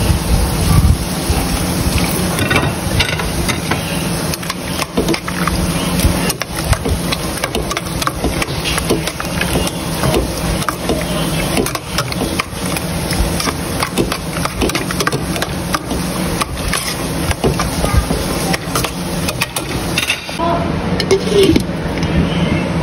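Metal spoon stirring in a stainless steel pot of beans and sliced hot dogs, with repeated clinks and scrapes against the pot over a steady low hum; near the end the glass pot lid is set on.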